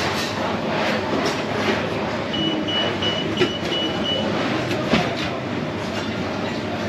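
Busy commercial kitchen din: a steady wash of noise with clinks and clatter of stainless-steel pans and lids. A run of short, high electronic beeps comes about halfway through, and a sharper metal clank follows about a second later.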